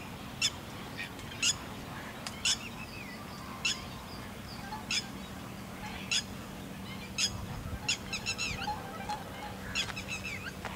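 Birds calling: short sharp call notes about once a second, broken near the end by a couple of quick rattling trills of falling notes, over a steady low hum.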